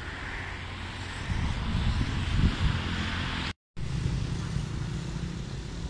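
Boat engine running with a steady low hum, under a rushing haze of wind and water noise. The sound cuts out for a moment a little past halfway.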